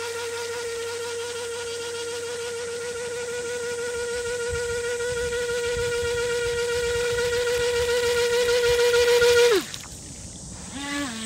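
Radio-controlled speedboat's motor running at speed with a steady high whine, growing louder as the boat comes closer. About nine and a half seconds in the throttle is cut and the whine drops in pitch and dies away as the boat coasts.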